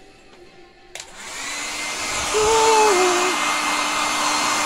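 Hair dryer switched on with a click about a second in; its blowing rises over about a second and then runs steadily, used to heat a vinyl skin.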